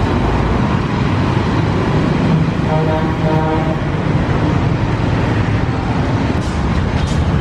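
Steady rumble of street traffic noise, with a short pitched tone about three seconds in and two sharp clicks near the end.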